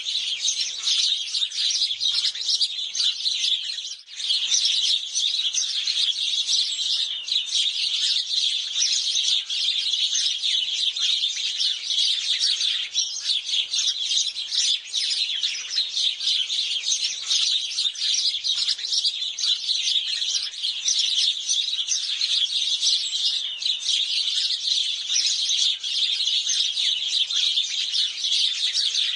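A flock of house sparrows chirping, many short calls overlapping without a break except for a brief lull about four seconds in.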